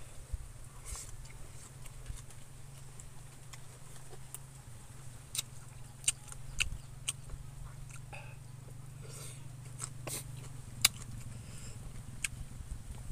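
A person chewing food by mouth, with short sharp mouth clicks and smacks scattered through, one louder click late on, over a low steady hum.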